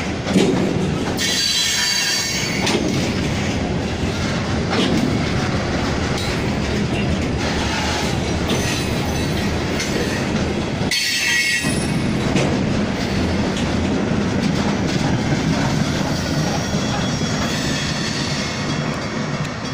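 Freight train cars rolling past: a steady rumble and clatter of steel wheels on rail, broken by two brief high-pitched wheel squeals, about a second in and about eleven seconds in. The sound eases slightly near the end as the last cars go by.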